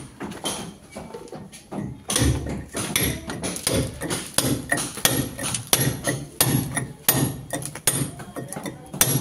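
Hammer striking a steel chisel into a brick wall, cutting a channel for electrical wiring. Lighter knocks in the first two seconds, then a steady run of sharp knocks about three a second.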